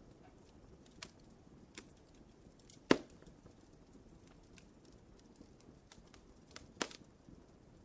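Wood fire crackling: a faint steady hiss with scattered small ticks, and two sharp pops, the louder about three seconds in and another near the end.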